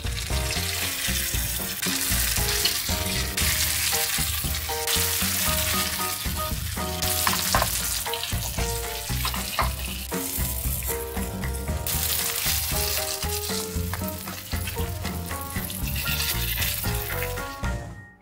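Rice paper dumplings frying in plenty of hot oil in a nonstick pan: a steady, dense sizzle that fades away at the very end.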